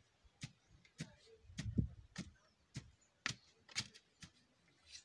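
Wooden pole tamping sawdust down into a metal sawdust stove, dull short thuds about twice a second as the fuel is packed hard around the bottle that forms the air channel.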